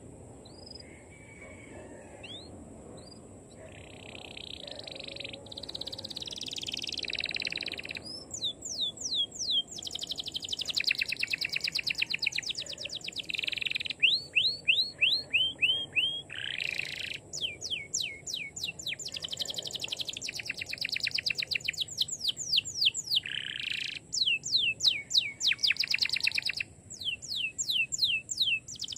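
Caged canary singing hard: long rapid trills and runs of quickly repeated sweeping notes, many per second, in phrases broken by brief pauses. The song is softer for the first few seconds, then louder.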